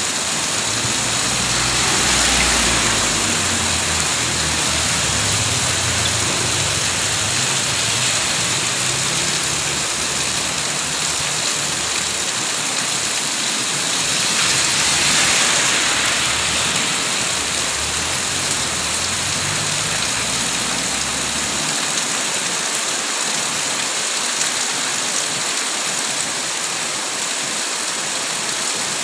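Heavy rain pouring steadily, a constant hiss on the road and foliage. Vehicles on the wet road add a low engine rumble and tyre swish, loudest about two seconds in and again about halfway through, when a small pickup truck goes by.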